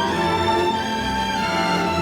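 Background music with held orchestral string tones over a pulsing low part.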